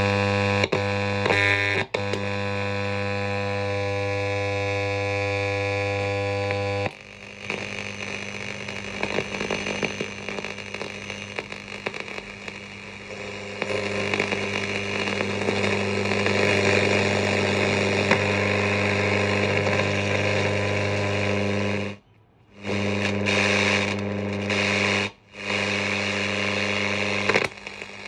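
Sony 7R-79 transistor radio's speaker putting out a buzz, then a hiss of static, on its shortwave bands as it is switched and tuned. Severe interference from LED lighting swamps the bands, so no station can be tuned in. The buzz gives way to hiss about seven seconds in, and the sound cuts out briefly twice near the end.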